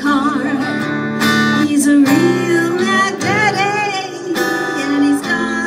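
A woman singing live with her own strummed acoustic guitar, her voice wavering with vibrato on held notes.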